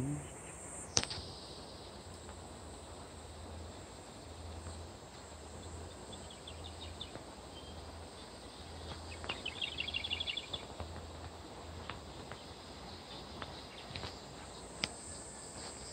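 Quiet outdoor ambience with a faint low hum that comes and goes and a single click about a second in. A quick high chirping trill sounds twice, faint at first and plainer a few seconds later.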